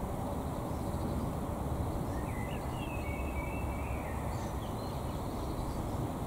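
Wind rumbling on the microphone, with a few short bird chirps in the middle.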